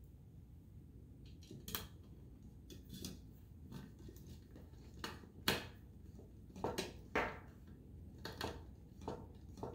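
Small screwdriver clicking and scraping on metal as a self-tapping screw is driven into an XLR connector on an aluminium case panel: a dozen or so irregular sharp clicks, the loudest about halfway through.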